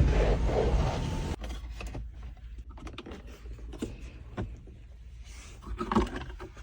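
The Jeep Grand Cherokee 4xe's engine running with a loud rush of noise, then cutting off about a second and a half in. Scattered clicks and knocks follow, with a louder knock near the end.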